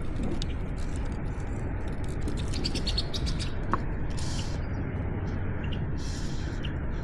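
Steady rush of river water, with small birds chirping now and then above it.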